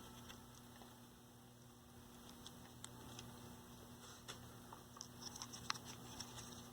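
Near silence: a faint steady low hum with scattered light ticks and taps of small tools being handled on a workbench, more of them from about four seconds in.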